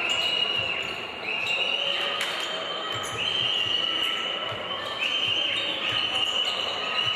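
Basketball game sound in an arena: a ball bouncing on the hardwood court and crowd noise. A high, shrill sound comes and goes in stretches of about a second.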